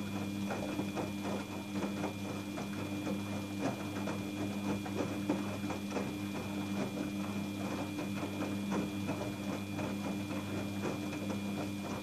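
Daewoo front-loading washing machine running a cotton 40°C wash: the motor hums steadily, with a faint high whine, while water and wet laundry splash and patter irregularly inside the drum.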